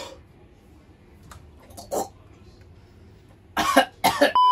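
A teenage boy coughing hard twice, each cough short, about three and a half seconds in. A steady high beep tone cuts in just at the end.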